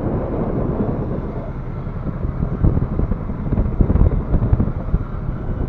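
Wind buffeting the microphone on a boat at sea: a low, gusty noise that swells about halfway through.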